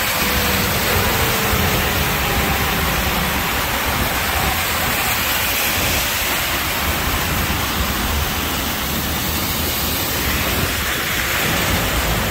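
Heavy rain pouring down in a loud, steady hiss, with a low rumble underneath. It starts abruptly.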